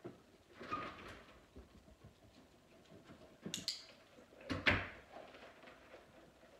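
A back door being opened, then shut about four and a half seconds in with a sharp knock that is the loudest sound, after a couple of quick clicks just before it.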